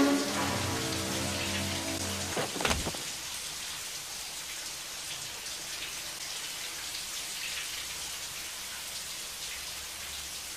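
Shower running, water spraying steadily into the tub. For the first two seconds or so music with long held low notes plays over it, ending just before a brief clatter; after that only the shower goes on.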